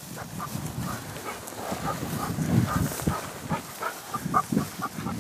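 Bird dogs working a field: a run of short, irregular dog sounds.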